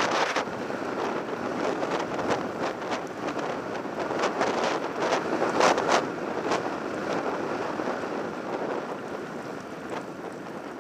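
Downhill mountain bike running fast over a loose gravel track: steady wind rush on the microphone and rolling tyre noise, with scattered knocks and rattles from bumps, the loudest about six seconds in.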